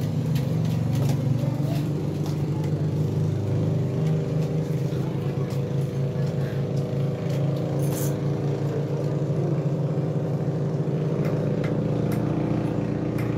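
Steady low motor drone made of several even tones, holding level, with a few faint clicks and a brief hiss about eight seconds in.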